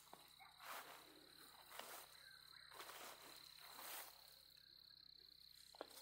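Faint, steady, high-pitched trill of a night insect, with soft rustling swishes about once a second.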